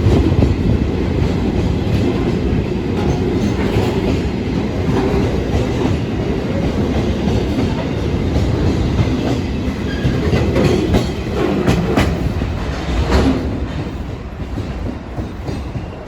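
Train passing at close range, its wheels clacking over the rail joints with a steady rumble that eases off over the last couple of seconds.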